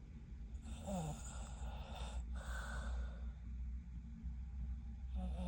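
A woman snoring in her sleep: two snoring breaths, the first about a second in with a short falling grunt-like tone, the second near three seconds.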